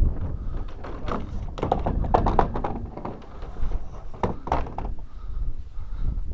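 Irregular knocks and clunks from sprinkler irrigation pipes and their couplings being handled and pulled into place.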